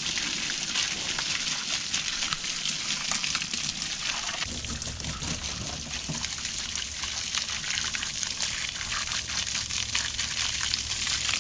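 Garden-hose water jet spraying onto a loader bucket and tyre, a steady hiss and splatter as manure is rinsed off.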